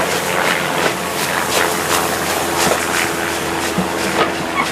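Passenger carriages rolling past close by: a steady rumble of steel wheels on the rails with irregular clicks and knocks over the track, and a faint steady hum underneath.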